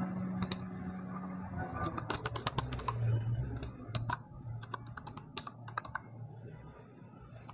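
Keyboard typing: a run of quick, irregular key clicks, densest in the middle and thinning out near the end, as a password is entered.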